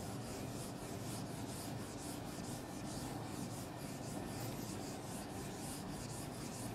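Handheld eraser rubbing across a whiteboard in quick, repeated back-and-forth strokes, a faint steady swishing.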